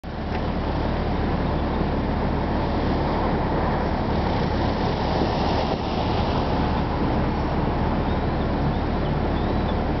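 Steady low rumbling outdoor noise with no siren tone: the siren is not sounding.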